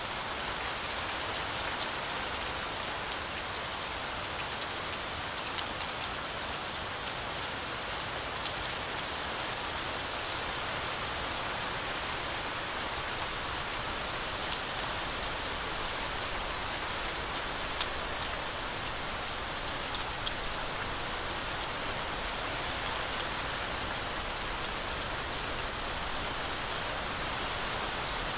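Heavy rain falling steadily through forest trees, a dense even hiss with scattered individual drops ticking on leaves.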